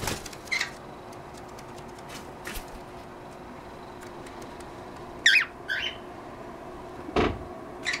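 Pet cockatiels giving a few short, sharp chirps, the loudest pair about five seconds in, with a single dull thump about seven seconds in.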